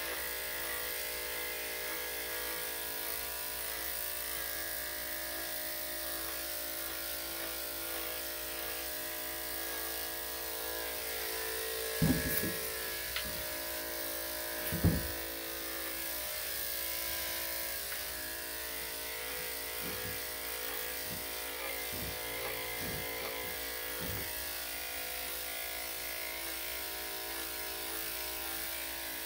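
Corded electric dog clippers with a number 5 blade running steadily, buzzing as they shave a small dog's coat. Two short thumps stand out a little before halfway and again about three seconds later, with a few faint clicks afterwards.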